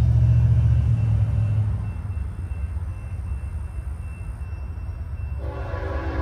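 Deep rumble of a train, loudest at first and then easing off. About five and a half seconds in, a locomotive's multi-note air horn starts to sound.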